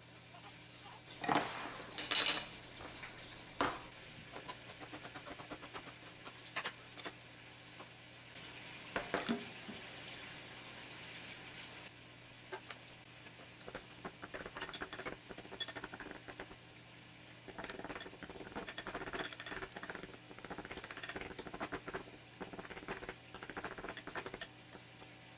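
Canned stewed whole tomatoes being mashed in a glass bowl, a quick irregular run of small wet squishing sounds from about halfway through. Before that, a few sharp knocks as utensils are set down on the counter, the loudest in the first four seconds and another around nine seconds.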